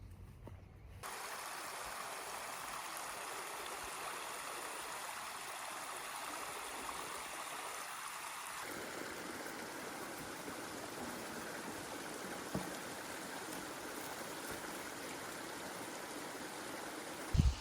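Flowing stream: a steady rush of water that starts abruptly about a second in, after a short low rumble. A single loud thump comes near the end.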